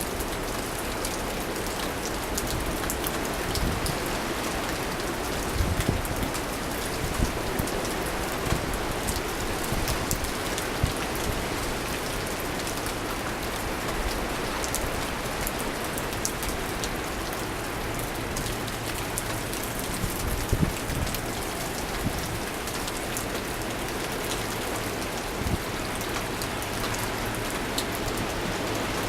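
Steady winter-storm rain during the changeover from rain to snow, with many small sharp ticks of drops hitting a surface close by over a low rumble.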